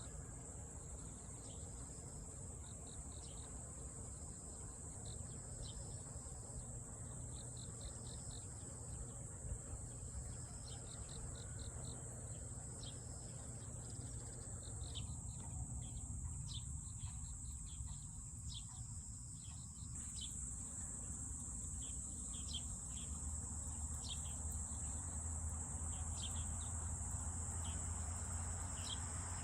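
Autumn field insects: a steady high-pitched insect chorus, with repeated short high chirps on top, in quick little runs at first and more spaced out later. A low steady rumble lies underneath.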